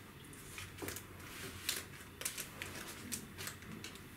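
Laptop packaging being handled and unwrapped: irregular crinkles and light clicks of paper and plastic wrapping.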